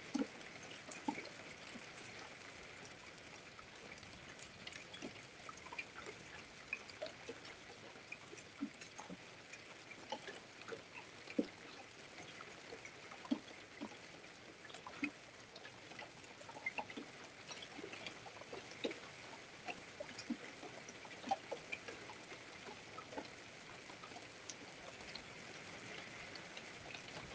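Light rain: scattered raindrops ticking irregularly on nearby surfaces over a faint steady hiss.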